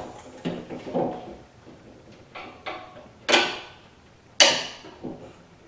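Vice grips (locking pliers) being fitted and clamped at the top of a raised rear hatch glass: small metallic clicks and handling sounds, then two sharp snaps about a second apart past the middle, as the pliers lock shut.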